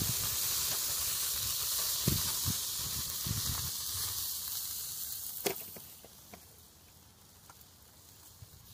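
Marinated pork steaks sizzling on a charcoal grill as a steady high hiss, with a sharp click of metal tongs on the grate about five and a half seconds in. The sizzle fades soon after.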